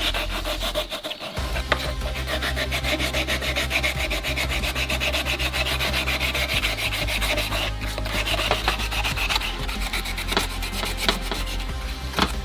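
Sanding down a plastic repair on a speaker enclosure: rapid, regular abrasive scraping strokes that shape the patch flush with the surrounding plastic.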